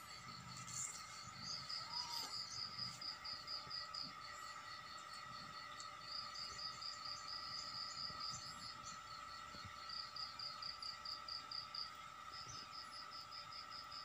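Insects chirping: runs of rapid high pulses, about seven a second with short breaks between runs, over a steady high hum.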